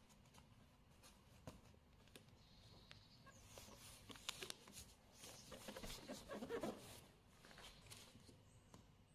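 Faint rustling and crackling of masking tape being pulled off the roll and pressed down around a car headlight, loudest in the middle.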